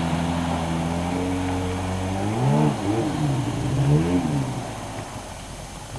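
Jet ski engine running steadily, then revved up and eased off twice in quick succession before fading away.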